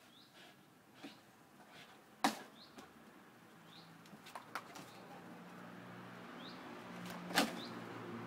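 Belgian Malinois leaping at a rope hanging from a tree branch, with sharp knocks and rustling as it grabs, hangs on and drops back to the ground, the loudest knocks about two seconds in and near the end. Short high chirps come at intervals, and a low hum builds in the second half.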